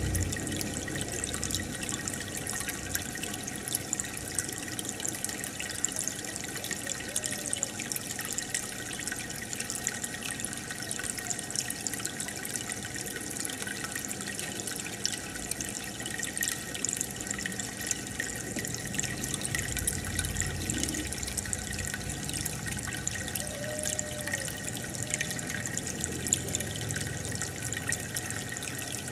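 Aquarium air bubbler running steadily: a continuous fizz of rising bubbles and trickling water.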